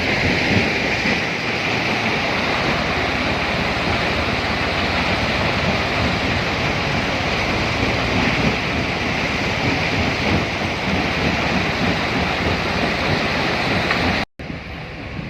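Steady, loud noise of heavy machinery running at a stone-crushing site, with no distinct strikes or changes; it cuts off abruptly about fourteen seconds in and comes back quieter.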